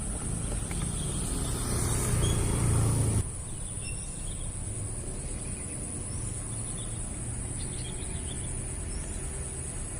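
Outdoor ambience: a steady high-pitched insect drone with faint bird chirps. A low rumble with hiss, loudest near the start, cuts off abruptly about three seconds in.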